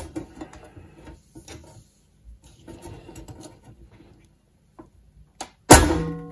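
Light clicks and rubbing as cables and connectors are worked loose from the rear panel of a Kenwood TS-2000 transceiver. Near the end, loud plucked guitar music strikes in suddenly.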